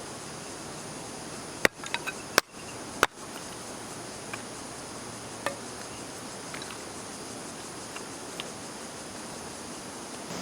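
Steady chirring of an insect chorus, crickets by the sound of it. A few sharp clicks or knocks come close together about two to three seconds in, with fainter ticks later.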